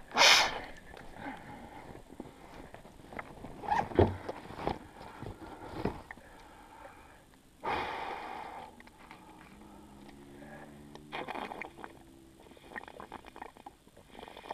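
Scattered rustles, knocks and crunches of someone moving about and handling gear in snow, with a loud rustle right at the start, a couple of knocks about four seconds in and a brief low hum about ten seconds in.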